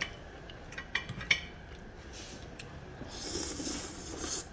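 A fork clicks twice against a plate about a second in. Near the end comes a noodle slurped into the mouth, a breathy sucking sound lasting about a second and a half.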